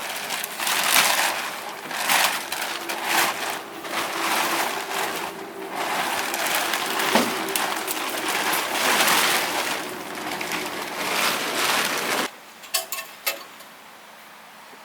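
A plastic cover being pulled off and handled, crinkling and rustling in irregular bursts. It cuts off abruptly about twelve seconds in, followed by a few light clicks.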